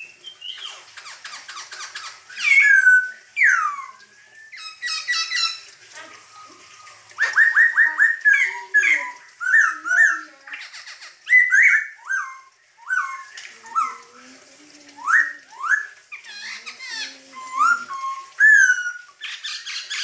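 Black-throated laughingthrush (poksay hongkong) singing a loud, varied song of whistled phrases, sliding notes and quick runs of repeated notes.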